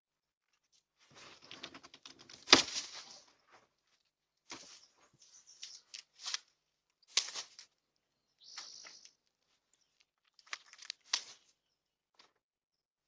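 Leafy branches being trimmed by hand: irregular bursts of rustling and crackling with sharp snaps, the loudest crack about two and a half seconds in.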